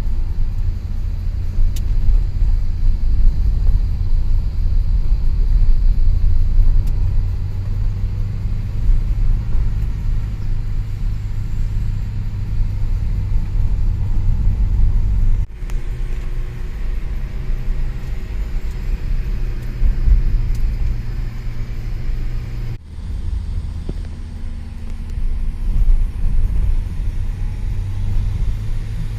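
Steady low rumble of a moving road vehicle, engine and road noise together. The sound breaks off abruptly twice, in the middle and about two-thirds of the way in, and picks up again the same each time.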